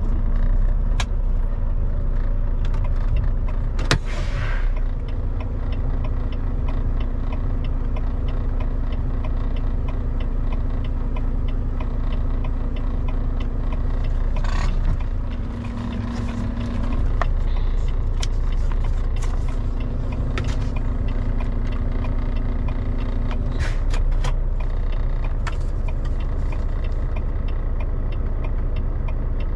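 Volvo VNL semi truck's diesel engine running as heard in the cab: a steady low rumble with a droning note that dips briefly in pitch and level about halfway through. A few short clicks and knocks from the cab.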